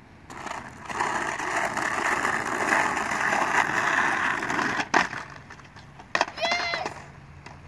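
Skateboard wheels rolling over rough asphalt, a steady grinding rumble for about four and a half seconds, ending in a sharp clack about five seconds in as the board meets the curb. A short high voice call follows a second or so later.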